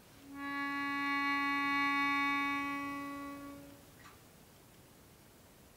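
Melodica, blown through its flexible mouthpiece tube, sounding one held note, soft and steady in pitch, for about three seconds before it stops.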